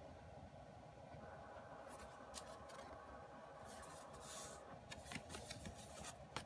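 Faint handling of paper and plastic: light rustling and scattered small clicks over a low steady hum, with a cluster of clicks near the end.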